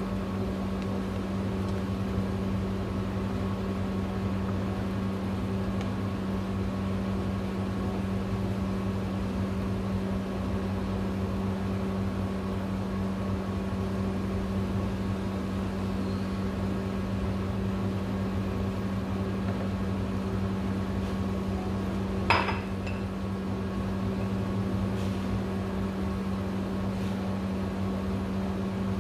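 A steady machine hum with fixed pitched tones, and one sharp clink about twenty-two seconds in.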